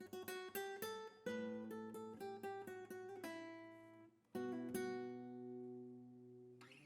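Faint background music on acoustic guitar: a run of plucked notes, a short break about four seconds in, then a chord left to ring and fade.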